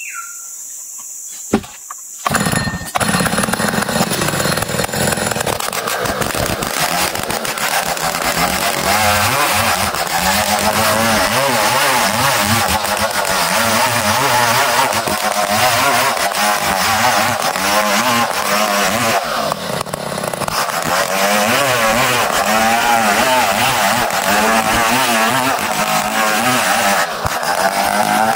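Two-stroke chainsaw comes up to full throttle about two seconds in and rips lengthwise through a squared ulin (Bornean ironwood) log, cutting a thick plank. The engine pitch wavers as it labours in the hard wood, easing briefly a couple of times.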